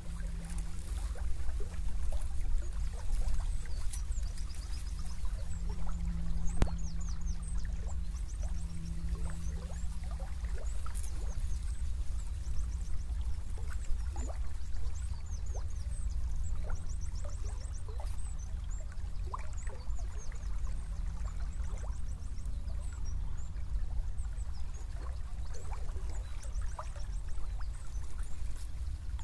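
Small river flowing past a reed bank, its water trickling and gurgling steadily, with small birds chirping high in the background.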